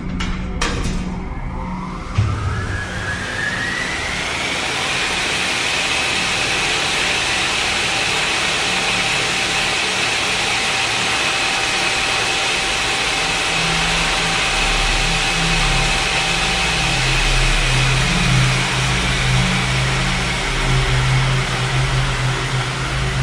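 Loud, engine-like mechanical roar: a whine rises over the first few seconds and then holds steady, with a deep hum growing stronger in the second half.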